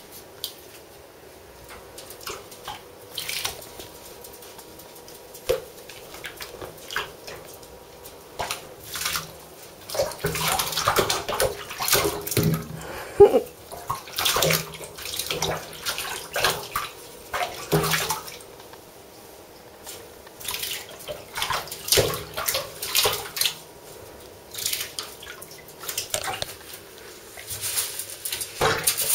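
A ferret splashing about in shallow water in a bathtub: irregular small splashes and drips, sparse at first and much busier from about a third of the way in.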